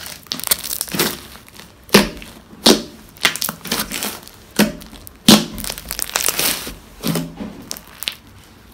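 A big mass of glittery pink glue slime being kneaded and pressed by hand on a table as the borax is worked in: irregular wet squelches and air-pocket pops with each push, about two a second, a few much louder than the rest.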